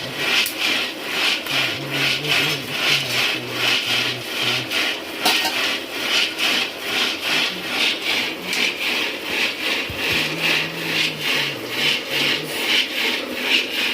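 Steady rhythmic scraping of a stirrer against a pan, about two and a half strokes a second, as maize kernels are stirred and roasted for popcorn.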